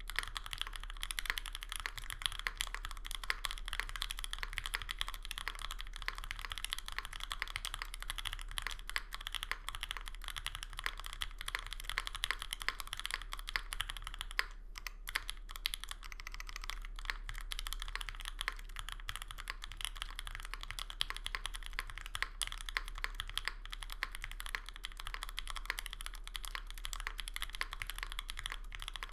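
Continuous typing on a Monokei Kei R2 mechanical keyboard with lubed 43 Studio OPBlack switches on an aluminum full plate and GMK keycaps: a rapid, steady stream of clacky keystrokes, with a brief pause about halfway through.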